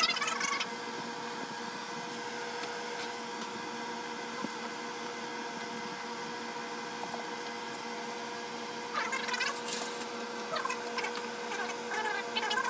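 Steady hum of a small electric motor with a few fixed tones, with brief bursts of rustling about nine seconds in and again near the end.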